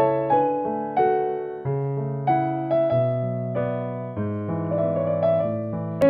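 Background music: a solo piano playing a slow melody of struck notes, roughly two a second, over held bass notes.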